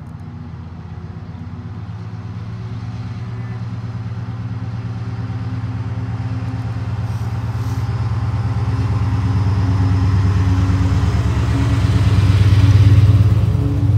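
Diesel freight locomotive hauling a loaded train, its engine a steady low hum that grows louder as it approaches, loudest near the end as it passes close by.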